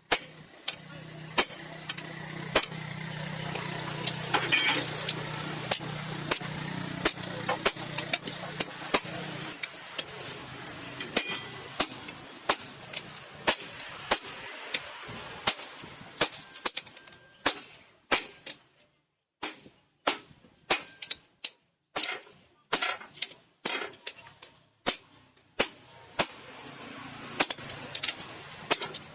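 Hammer blows on steel, repeated sharp strikes as in forging a blade. They come irregularly at first over a steady low hum that stops about a third of the way in, then fall into about two blows a second.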